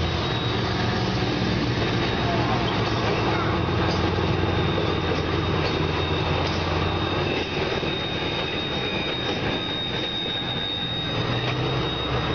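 Train running slowly, heard from aboard: a steady rumble with a low hum that weakens about seven seconds in, and a faint steady high whine.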